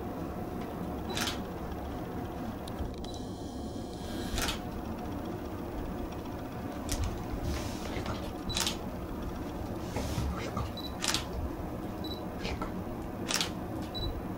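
Digital camera shutter clicking about six times at uneven intervals of two to three seconds, with a few short high beeps between the shots, over a steady low room hum.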